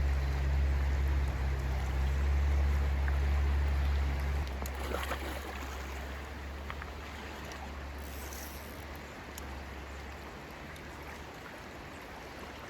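Steady rush of flowing river water, with a low rumble under it that drops away about four and a half seconds in.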